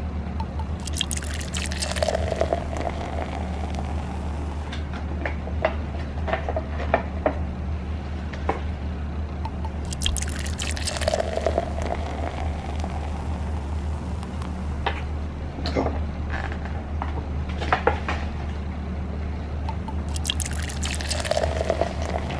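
Hot water poured from a kettle into three paper instant-noodle cups in turn, each pour lasting about two seconds: near the start, midway and near the end. Between the pours come short clicks and rustles as the cups' paper lids are handled, over a steady low hum.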